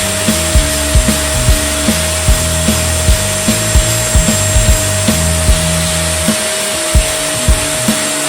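Background music with a steady beat of about two hits a second and a stepping bass line, over a steady hiss with a constant high tone.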